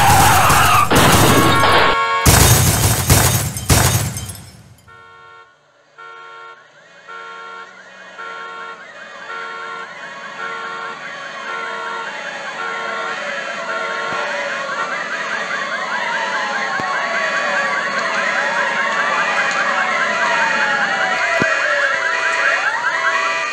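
Loud crashing and smashing noise for about the first four seconds. After a short lull, a two-tone siren alternates high and low, soon joined by several wailing sirens rising and falling over one another, growing louder toward the end.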